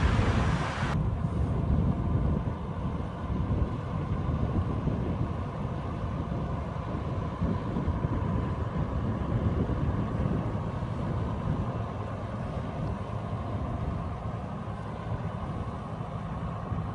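John Deere tractor's engine running steadily as it drives a slurry drag-hose applicator across the field, a low rumble with an uneven level.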